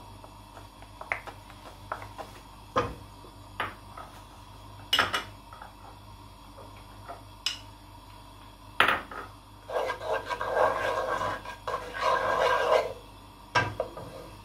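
Wooden spoon knocking and scraping against a nonstick kadai as butter is scraped into it and spread around the pan to melt. There are scattered sharp taps, then a loud stretch of scraping about ten seconds in, and one more knock near the end.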